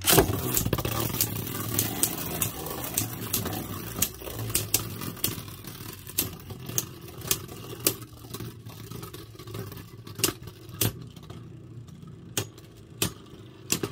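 Two Beyblade Burst tops, Wonder Veltriac on the Quest driver against Archer Hercules, launched into a plastic stadium with a loud rip at the start. They then spin and rattle across the stadium floor, with repeated sharp clacks as they collide.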